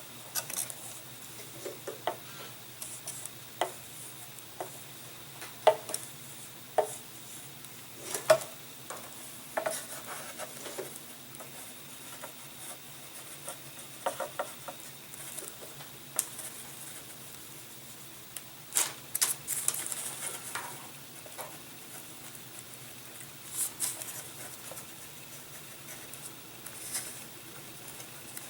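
Handling of plastic model-airplane covering film and tools on a workbench: scattered light clicks and taps with crinkly rustles, one longer rustle about two-thirds of the way through.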